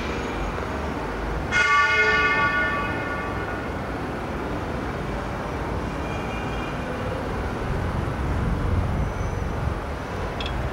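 Train rumbling slowly over station pointwork, with a sudden loud metallic ring about one and a half seconds in that dies away over a second or so. Fainter rings come later, and the rumble swells near the end.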